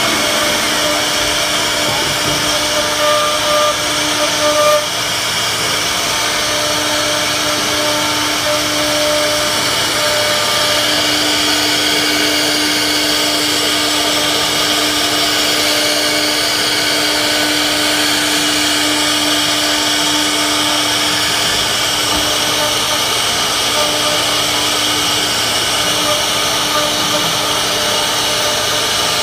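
CNC router spindle running steadily while carving wood: a continuous whine over an even hiss of cutting.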